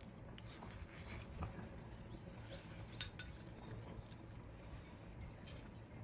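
Quiet eating sounds: a person chewing, with light rubbing and scraping and two sharp clicks about three seconds in.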